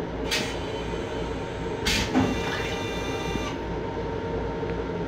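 Stainless-steel toilet in a Long Island Rail Road M7 railcar flushing: a short hiss, then about two seconds in a longer rushing hiss with a thud, over the steady rumble of the train.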